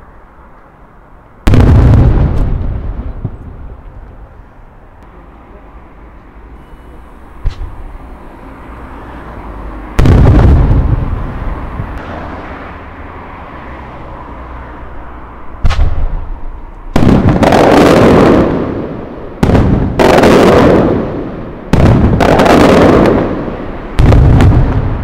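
Aerial firework shells bursting with loud booms, each echoing and rumbling away for a few seconds. Single reports come about a second and a half in and again about ten seconds in, then a quicker run of bursts follows through the last ten seconds.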